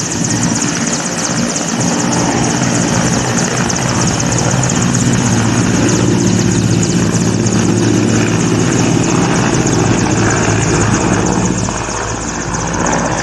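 Mil Mi-17 helicopter's twin turboshaft engines and main rotor running at take-off power as it lifts off and climbs away: a steady low rotor drone under a high turbine whine, a little quieter near the end.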